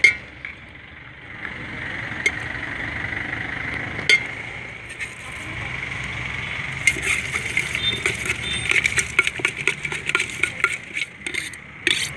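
Cut guava and star fruit pieces knocking and clinking against the inside of a steel tin as they are tossed with masala and oil. A few single knocks come first, then a quick run of clinks from about seven seconds in.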